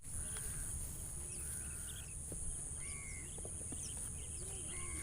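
Outdoor waterside ambience: a steady high-pitched insect drone with faint short bird calls over a low background rumble.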